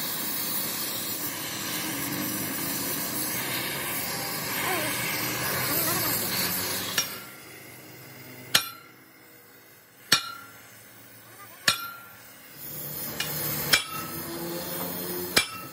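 A steady hiss for the first half. Then a hammer strikes steel about every one and a half seconds, six blows, each ringing briefly.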